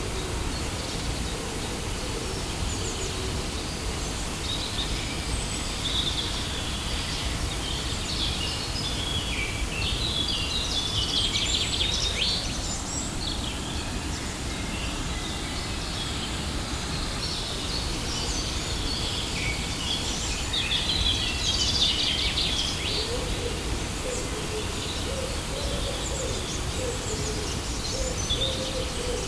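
Steady rushing water of a waterfall, with birds chirping high over it in two busier spells, around ten and twenty seconds in. A low bird call comes in during the last few seconds.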